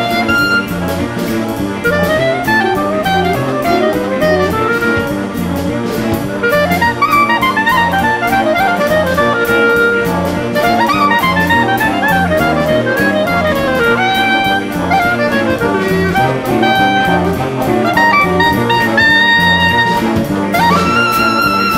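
Solo clarinet playing quick runs over a jazz big band of saxophones, trumpets and a drum kit keeping a steady cymbal beat, with a rising glide to a held high note near the end.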